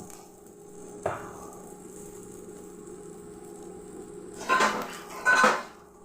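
Kitchen utensils and dishes knocking and clattering: one sharp knock about a second in, then two louder metallic clatters in quick succession near the end.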